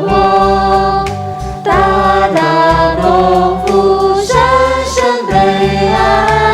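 A Mandarin worship song sung over instrumental accompaniment, with long held sung notes above a steady bass line.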